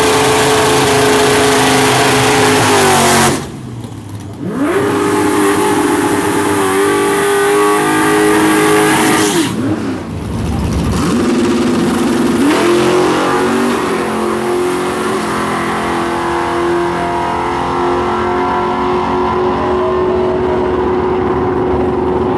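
Drag-racing cars, a Chevrolet Camaro and a Ford Mustang, revving at the starting line in short climbing and falling stretches, then pulling hard down the dragstrip in a long steady run that grows duller near the end.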